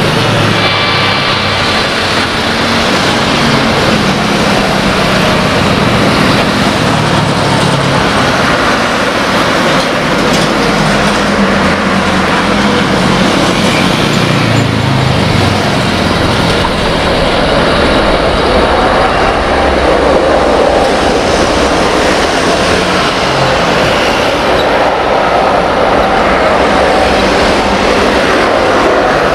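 Jet engine noise of a Boeing 777-300ER with GE90 engines touching down and rolling out on the runway: a loud, steady rush, with a thin high whine over it in the first few seconds.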